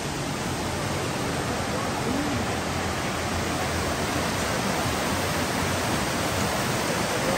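Mountain stream cascading over rocks in small waterfalls: a steady rushing of water that grows slightly louder.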